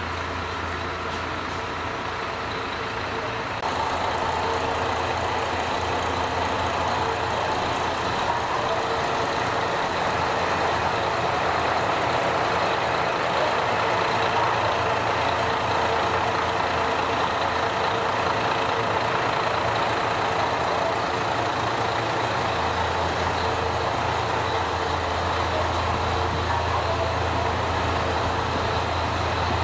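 KiHa 54 diesel railcar idling at a standstill: a steady engine drone with a low hum, growing louder about four seconds in.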